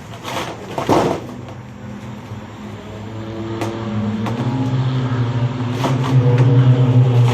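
A loud rattle of sheet metal about a second in. Then a steady machine hum builds and keeps getting louder.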